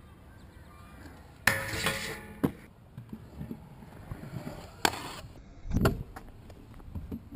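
Stunt scooter hitting and rolling on concrete: a sharp clatter about one and a half seconds in followed by about a second of rolling scrape, a couple of clicks, then a heavy thud about six seconds in.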